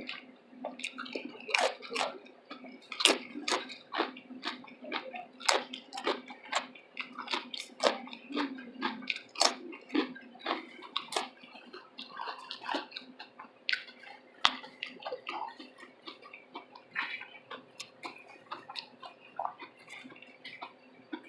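Close-miked wet chewing and lip-smacking of a mouthful of chili cheese slaw veggie dog: many irregular sharp clicks and smacks, busiest in the first half, over a faint steady hum.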